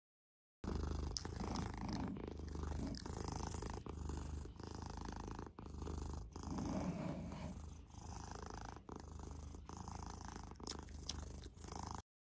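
Domestic cat purring close to the microphone: a steady low rumble that swells and dips with each breath, about once a second.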